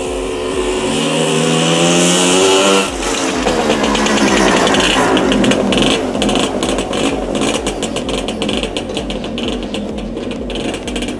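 Jawa Pionýr 21 moped's small two-stroke single-cylinder engine running under throttle as it approaches, its pitch rising over the first few seconds. About three seconds in it changes to a rougher, rattly sound as the moped passes close by and rides away.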